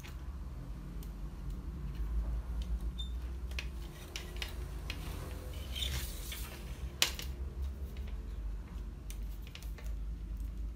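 Scattered clicks and knocks of plastic and metal parts being handled while a laser printer fuser assembly is taken apart, with one sharp click about seven seconds in. A steady low hum runs underneath.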